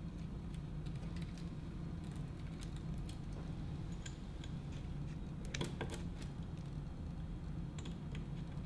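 Scattered small clicks and taps as the front-panel connector cables are handled and their small plastic plugs pressed onto the motherboard's header pins, with a few clustered clicks about six seconds in, over a steady low hum.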